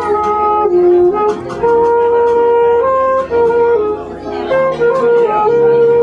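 Alto saxophone playing a jazz melody of held notes that step up and down in pitch, over chords and a bass line from a Kurzweil electronic keyboard.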